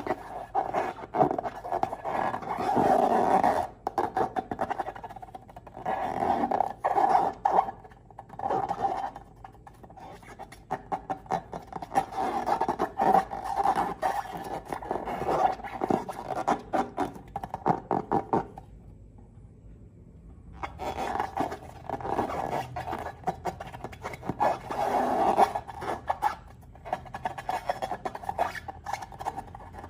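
Glossy slime being squished, stretched and folded by hand, making dense wet crackling and popping in repeated swells, with a short lull a little past the middle.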